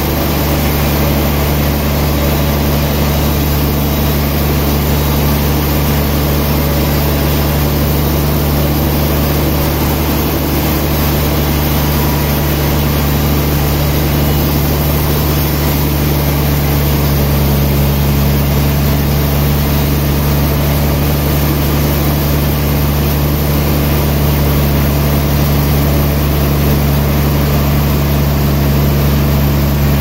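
Large sawmill band saw running steadily as its blade cuts lengthwise through a big log: a loud, even drone with a deep, constant motor hum underneath.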